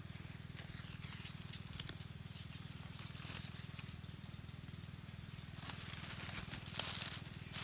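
Dry bamboo leaf litter rustling and crackling as it is disturbed, with scattered crackles and a louder rustle near the end, over a steady low hum.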